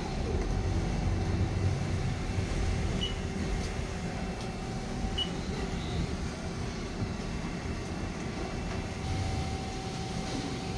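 Steady low hum of running machinery with a faint steady tone in it, no rhythm or change; two tiny high blips sound faintly about three and five seconds in.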